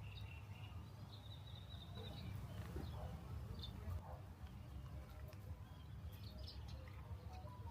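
Songbirds chirping and calling: scattered short chirps and a brief trill about a second in, over a steady low rumble.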